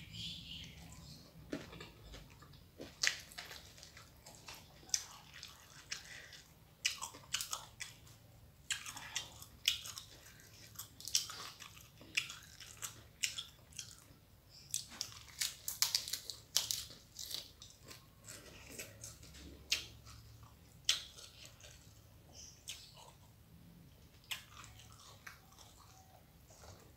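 Close-miked eating sounds: a person chewing and crunching a meal of rice with crisp fried salted fish and raw vegetables, giving many irregular crunchy clicks and wet chewing noises.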